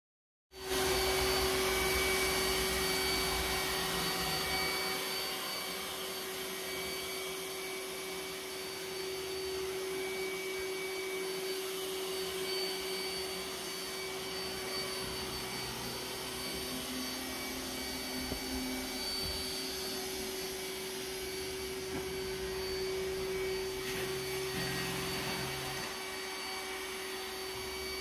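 iRobot Roomba s9 robot vacuum running over thick high-pile carpet: a steady whir of its suction motor and brushes with a constant whine over it. It is a little louder in the first few seconds, then evens out.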